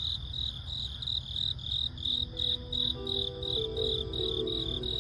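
Crickets chirping in a steady pulsing rhythm, about three or four chirps a second. Soft music with long held notes fades in under them about two seconds in.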